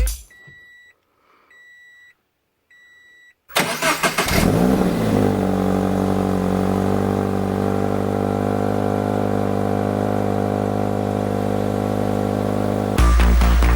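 Three short electronic chimes from the car, then the Toyota 86's 2.0-litre flat-four boxer engine cranks on the starter, catches with a quick rise in revs and settles into a steady idle: a cold start of a bone-stock engine. Music cuts in near the end.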